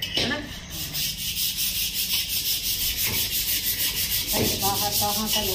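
A large iron kadhai being scoured by hand, with fast, even scrubbing strokes, about seven a second, rasping against the metal as it is cleaned.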